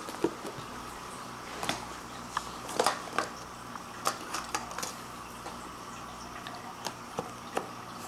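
Scattered light taps and knocks of toys being handled on a carpeted floor, over a steady low hiss.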